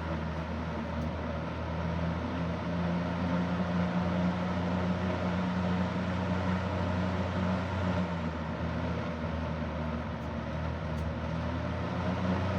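Super Electric 14-inch box fan (model 1475) running steadily on its low speed: a constant motor hum under the rush of air from the blade.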